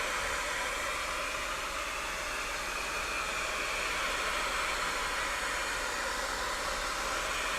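Electric hot-air blower running steadily with an even blowing hiss, heating a phone's replacement digitizer to soften its adhesive so it sticks.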